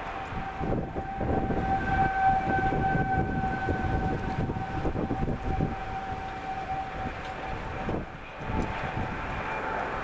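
Outdoor tornado warning siren sounding a steady tone, fading away about seven seconds in and coming back faintly near the end. Gusty wind buffets the microphone throughout.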